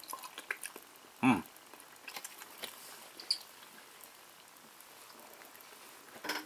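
A person chewing an unfamiliar piece of food, with scattered small wet mouth clicks and a short "hmm" about a second in.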